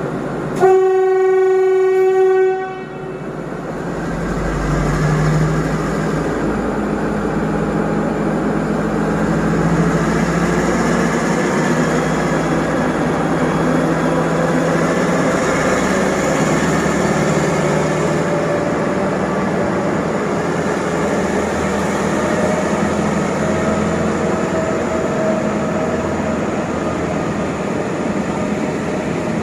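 Diesel locomotive sounding one horn blast of about two seconds, then its engine revving up as it pulls the passenger train away, with the carriages rolling past on the rails.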